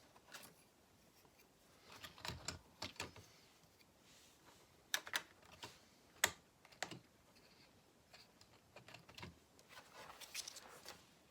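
Plastic Lego pieces being handled and pressed together, making faint scattered clicks and taps in small clusters.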